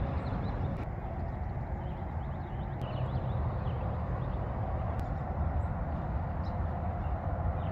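Outdoor ambience: a steady low rumble of wind or distant road noise, with faint scattered bird chirps in the middle.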